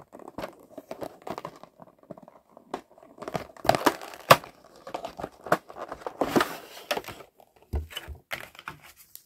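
Packaging being unwrapped by hand: irregular crinkling and tearing with sharp snaps, busiest in the middle.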